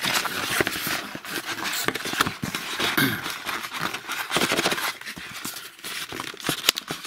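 White cardboard boxes being handled: an inner box slid out of an outer box, with scraping and rustling of card on card and many light knocks and taps.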